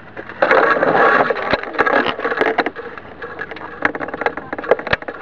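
RC car starting off with its motor running and tyres scraping over rough ground, heard from a camera mounted on the car. A rapid string of knocks and clatters follows as the chassis jolts and tips.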